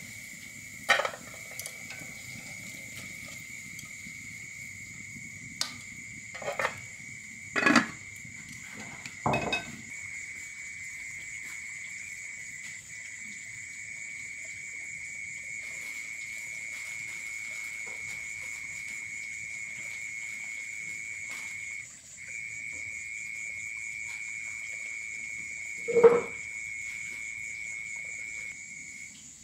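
Steady, high-pitched drone of a chorus of insects. A few short knocks and clinks come in the first ten seconds, and a louder knock comes near the end.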